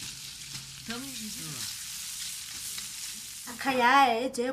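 Food sizzling as it fries in a pan, a steady hiss, with a brief voice about a second in. Near the end a woman starts speaking over it.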